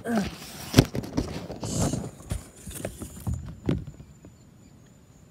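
Handling noises: a string of irregular knocks, clicks and rustles as the phone and a plastic tub are moved about. A short voiced grunt comes at the very start. After about four seconds it goes quiet apart from a faint steady high insect trill.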